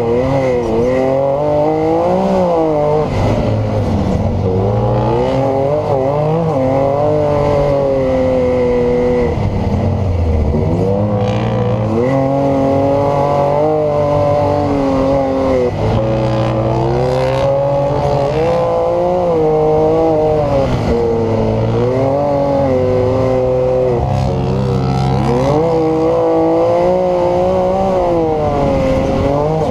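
Can-Am Maverick X3's turbocharged three-cylinder engine driven hard, heard from inside the cab. The revs rise and fall over and over as the throttle is opened and let off, with a faint steady high whine underneath.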